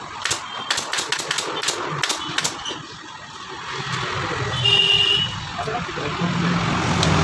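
Pneumatic upholstery staple gun firing a quick series of staples into a sofa seat's fabric covering, about a dozen sharp clicks in the first two and a half seconds. In the second half a low engine-like hum builds, with a brief high-pitched tone about five seconds in.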